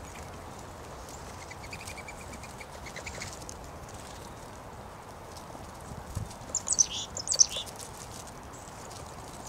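Small songbirds calling: a short rapid trill a couple of seconds in, then a burst of loud, high chirps around seven seconds in.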